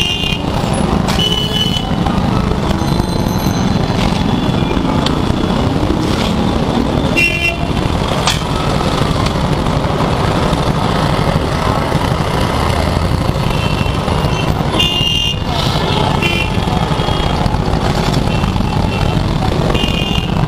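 Heavy stop-and-go traffic of scooters, motorcycles and rickshaws: a steady rumble of small engines running at a crawl. Short horn toots sound now and then, several times over.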